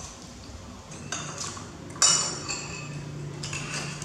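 Metal spoon clinking and scraping against a ceramic plate while eating, several separate clinks with the loudest about two seconds in.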